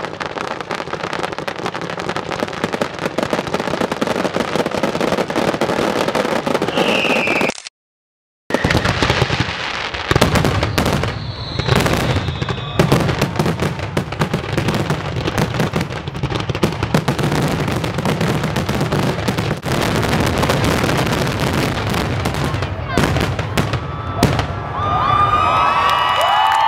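Fireworks display going off in a continuous barrage of bursts and crackling. It cuts out briefly about eight seconds in, then resumes. Near the end, crowd cheering and voices rise over it.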